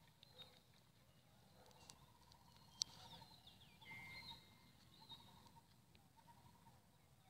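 Faint bird chirps and calls, with a single sharp click about three seconds in.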